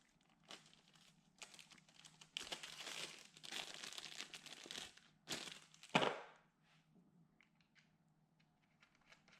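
Plastic packaging crinkling and tearing as a spare MIG contact tip is taken out, with one sharp knock about six seconds in, then a few faint clicks.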